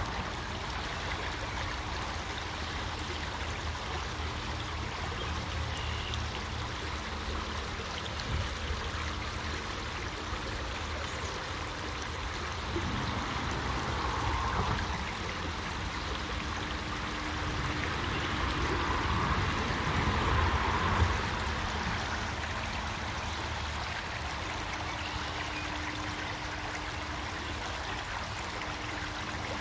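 Creek water running over rocks, a steady rushing noise that swells louder for a couple of seconds around the middle and again for a few seconds later on.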